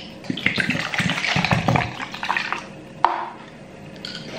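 Liquid poured from a plastic bottle into a plastic measuring cup, glugging for about a second and a half. A single sharp knock follows about three seconds in.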